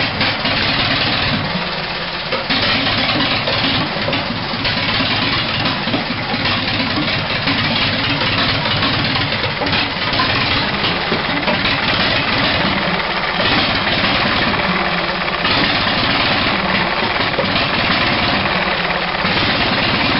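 1920 Harris 1,100-cubic-inch four-cylinder stationary engine running steadily.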